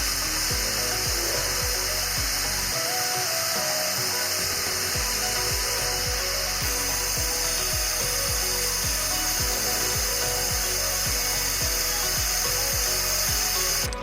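A power tool running steadily with a high hiss, cutting off suddenly near the end, over background music with a steady beat.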